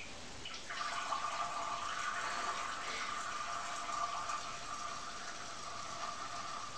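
Sphynx cat urinating into a toilet through a training seat insert: a steady trickle of liquid into water that starts a little under a second in and keeps a fairly even pitch.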